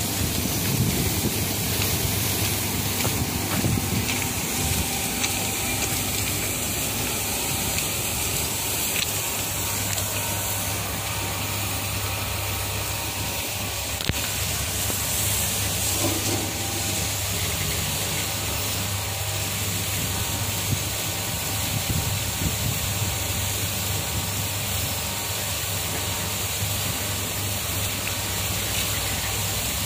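Water spraying steadily from the jets of an automatic train wash system, a continuous hiss over a steady low hum.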